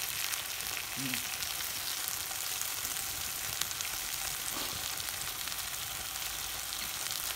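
Pieces of marinated meat sizzling steadily in a frying pan over a wood-fired rocket stove, with scattered small pops and crackles.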